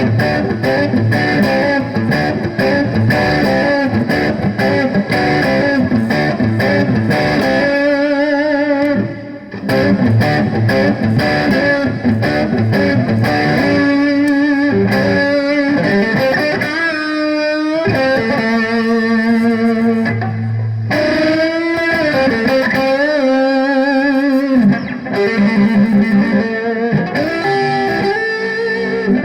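Electric guitar played through a Harley Benton DNAFX AmP20 digital modelling amp. It opens with busy chordal riffing, and from about eight seconds in turns to a lead line of sustained single notes with wide vibrato and string bends.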